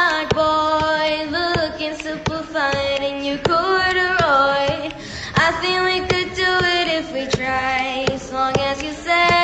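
A high solo singing voice sings long, wavering notes and quick runs, with sharp clicks keeping time behind it.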